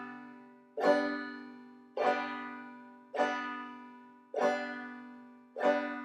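Open banjo strings brushed downward with the nail of a single striking finger, the basic clawhammer stroke: five even strums about one and a quarter seconds apart, each chord left to ring and fade before the next.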